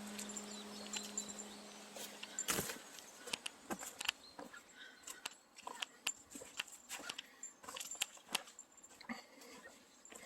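Footsteps on a forest trail: irregular crunching and snapping of twigs and debris underfoot. This follows the end of a steady music chord that fades out over the first couple of seconds and stops at a sharp knock.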